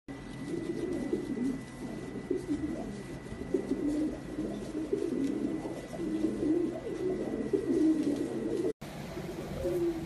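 Fantail pigeons cooing over and over in low, rolling coos. The cooing drops in level after a short break near the end.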